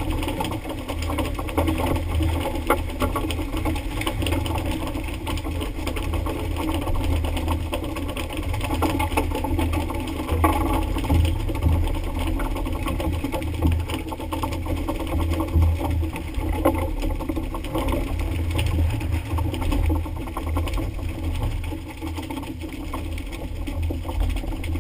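Fishing boat's engine running steadily with a low drone, under a constant rush and splash of sea water against the hull.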